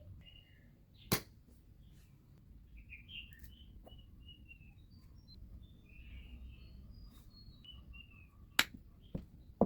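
Small birds chirping in the background, with sharp clicks or taps about a second in and three more near the end.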